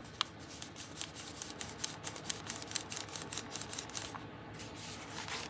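Paper rustling and crinkling as hands press and fold the pages of a handmade junk journal, with many small irregular clicks and one sharper tick about a quarter second in.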